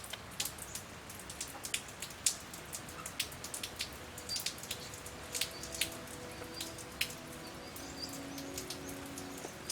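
Rain falling, with irregular single drops tapping sharply on a hard surface over a steady hiss. Faint held music notes come in about halfway.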